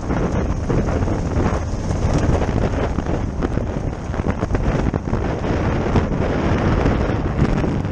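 Heavy wind buffeting on an action camera's microphone over a Honda Africa Twin's parallel-twin engine running at a steady low speed on a dirt track, with frequent knocks as the bike rides over rough ground.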